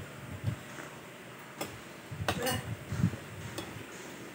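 A few sharp light clicks, three spread across a few seconds, with soft low knocks between them: tableware being handled at a meal.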